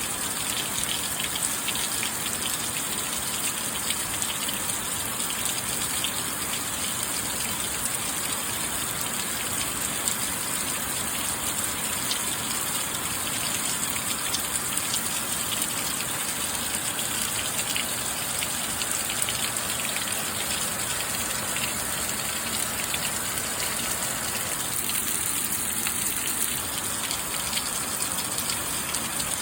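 Steady, continuous rain falling, a dense hiss of many drops with fine patter and no breaks.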